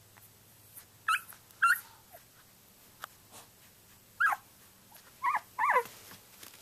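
Twelve-day-old Samoyed puppy whimpering: five short, high-pitched cries that bend up and down, two about a second in and three more in the second half.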